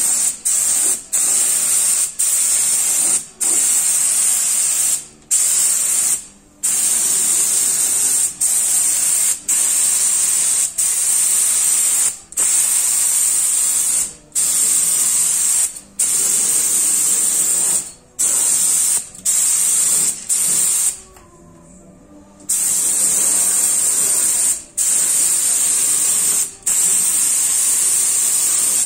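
Compressed-air spray gun with a 2.0 nozzle spraying 2K protective coating: a high, steady hiss in short passes of one to two seconds as the trigger is pulled and released about twenty times, with a longer break about three-quarters of the way through.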